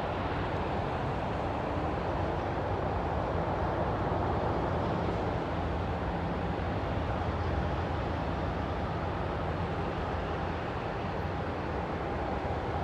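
Steady, even rumble of distant aircraft engines and road traffic, with a faint steady whine above it.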